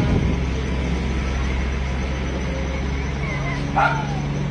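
Steady low rumble of a moving vehicle, with one brief, louder, higher-pitched sound about four seconds in.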